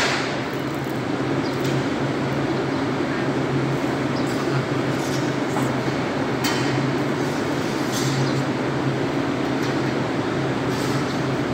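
Steady low machinery hum under a rushing noise, with a few faint, scattered clicks.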